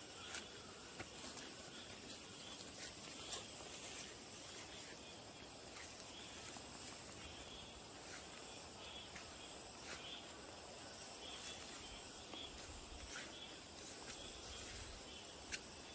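Steady high-pitched insect chorus of crickets or cicadas, with a repeating shorter chirp under it and a few faint clicks.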